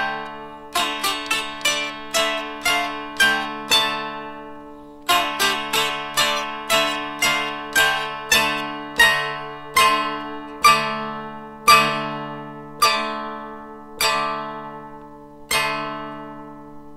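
Dulcimer, a fretted drone zither, played solo: a plucked melody over steady ringing drone strings. After a brief pause about four seconds in, the notes slow to about one a second, and a final note is left to ring out near the end.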